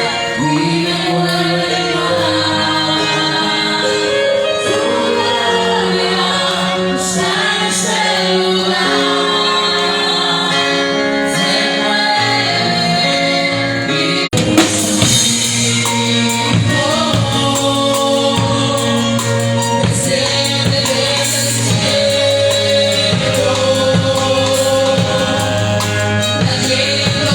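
Live gospel worship music: a group of singers over a band with drum kit and tambourine. The sound cuts out for an instant about halfway through, then the music carries on.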